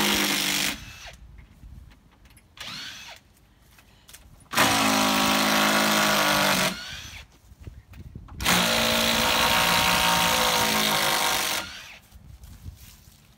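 Power drill running in three bursts of a few seconds each, with pauses between; it is backing screws out as the temporary side supports come off the porch roof.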